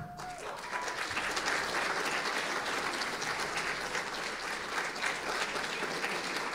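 An audience applauding, steady clapping from many hands that swells in about half a second in and keeps going.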